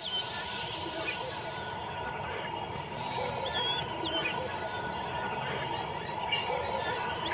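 Dawn grassland ambience: an insect chirping in an even pulse about twice a second, with a few birds calling in short, wavering whistles.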